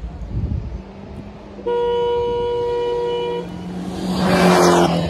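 A vehicle on the road gives one steady horn blast of nearly two seconds. Then a vehicle rushes past: its noise swells and drops in pitch as it goes by.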